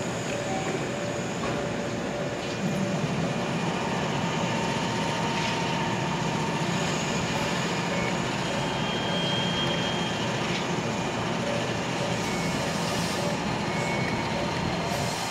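JR West 227 series electric train standing at the platform with its onboard equipment running steadily, faint whining tones coming and going, then starting to pull away near the end.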